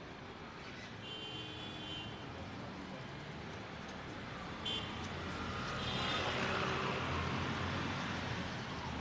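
City road traffic: cars moving off from a junction, engine and tyre noise swelling as vehicles pass close about five seconds in. Short vehicle horn beeps sound about a second in and again around five to six seconds.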